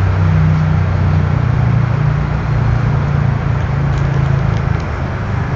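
Steady low hum of a vehicle engine running, with a few faint ticks about four seconds in.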